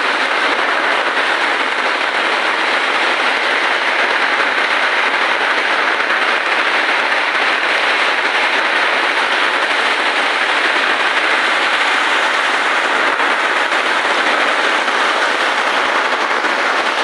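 Heavy rain falling steadily, a dense, even patter.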